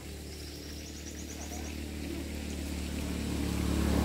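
A motor vehicle's engine running steadily and growing louder as it approaches, loudest near the end.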